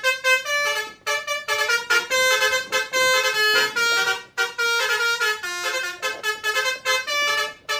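A simple electronic tune of quick beeping notes stepping up and down in pitch, like a toy's sound chip.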